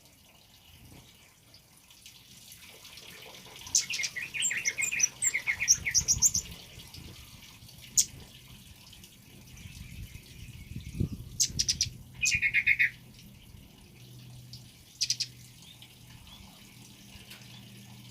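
Male kemade bird calling in bursts of fast repeated chattering notes: a long run about four seconds in, another about twelve seconds in, and a short one near fifteen seconds. A steady hiss of trickling water sits beneath it.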